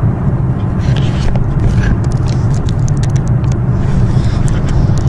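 Steady, loud, low rumble of a vehicle in motion, presented as an airliner in flight heard from inside the cargo hold, with scattered faint ticks and rattles over it.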